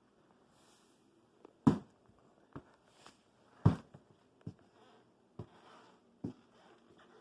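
Several separate knocks and clunks, the two loudest about two seconds apart, with soft rustling between them.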